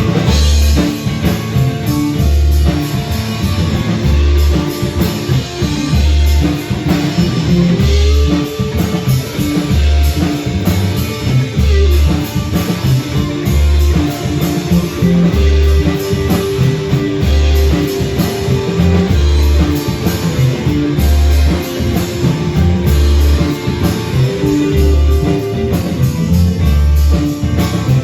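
Live band playing a song on guitar, bass and drum kit, with a steady low bass line pulsing about once a second.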